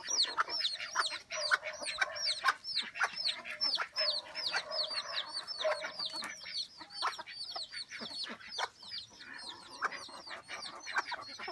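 Serama bantam chicks peeping over and over, several short high peeps a second that fall in pitch, with the hen clucking lower down.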